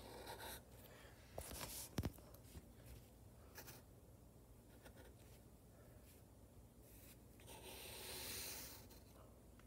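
Faint scratching of a graphite pencil drawing on paper in several strokes, the longest near the end, with a sharp click about two seconds in.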